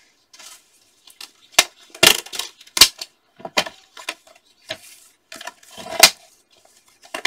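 Fiskars plastic paper trimmer clacking and knocking as it is set down on the craft mat and a paper strip is slid into place under its arm. There are about ten sharp knocks, the loudest about three and six seconds in, with light paper rustling between them.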